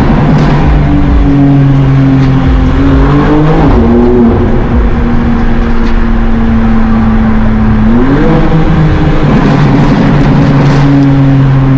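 Car engine running loud under acceleration, its pitch climbing and then dropping twice, about four seconds in and again about eight seconds in, holding steady in between.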